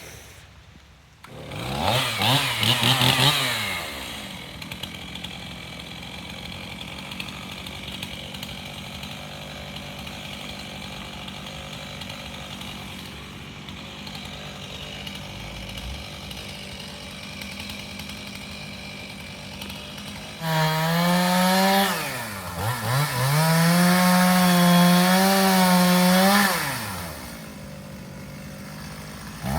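Chainsaw revved briefly about two seconds in, then idling steadily for a long stretch. About two-thirds of the way through it runs at full throttle for about six seconds, its pitch sagging once and recovering, then drops back to idle and revs up again at the very end.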